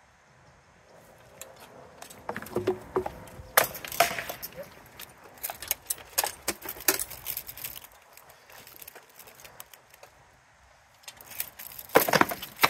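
Armoured sword sparring: clanks and knocks of blades striking shields and armour, with the plates rattling as the fighters move. The blows come in bursts about two to seven seconds in and again near the end, with a lull between.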